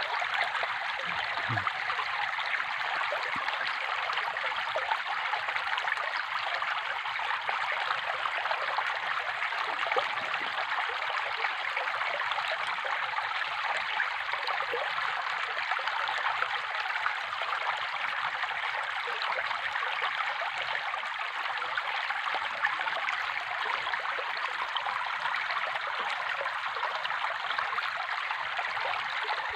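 Running water flowing steadily with an even, unbroken trickling splash, like a small stream.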